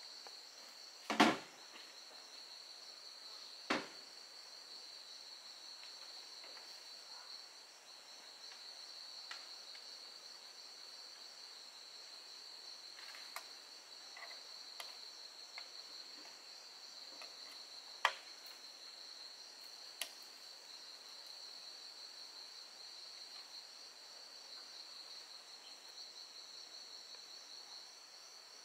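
A steady high-pitched insect chorus from the forest, with a loud knock about a second in and another a few seconds later as bamboo poles are laid down, then a few lighter knocks further on.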